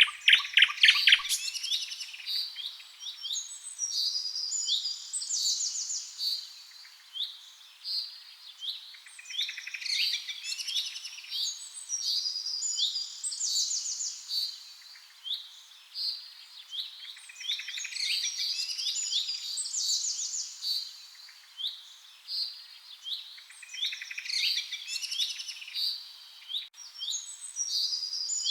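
Several songbirds singing together in a dense chorus of overlapping chirps and short trilled phrases, with a louder run of calls in the first second or so.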